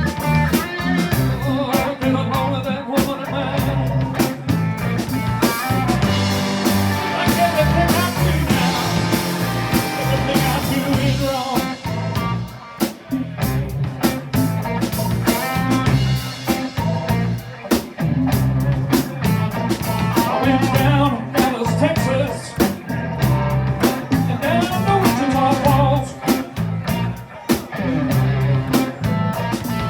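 Blues band playing a blues-rock number with guitar, keyboards, bass and percussion over a steady beat.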